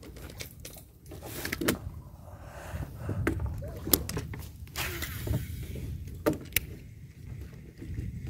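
Shimano Calcutta 51XT baitcasting reel being handled and adjusted by hand: scattered sharp clicks and knocks of its parts, over a steady low rumble.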